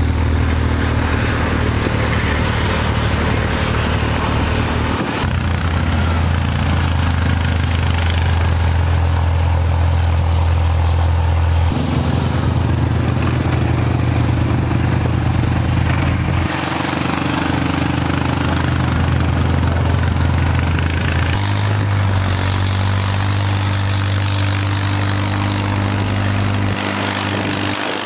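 Engines running steadily through a run of edited clips, their pitch and level changing abruptly every few seconds: a four-wheeler pushing snow with its front plow blade, and a Farmall M tractor's four-cylinder engine.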